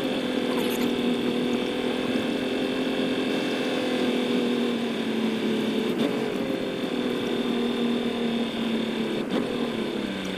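A steady mechanical hum made of several steady tones, its pitch sagging a little near the end.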